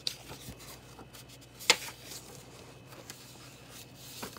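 Pages of a hardcover picture book turned by hand: soft paper rustling and small clicks, with one sharp snap of a page a little under two seconds in.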